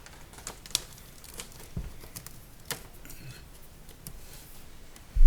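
Scattered light taps and clicks of quarter round trim being handled and pressed into place against the countertop as the mitred corner pieces are matched up, with a louder low thump at the very end.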